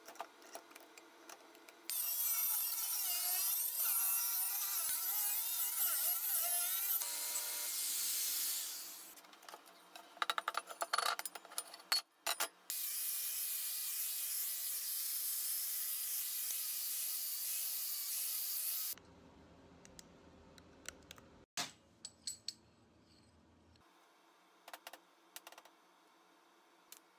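A series of steel-plate metalworking sounds. First a power tool cuts a steel disc around a circle jig with a loud hiss and a wavering whine that fades out, followed by some knocks. Then an angle grinder grinds the edge of the steel ring with a steady hiss, a low buzz with a few sharp cracks follows, and near the end come a few light taps of a chipping hammer.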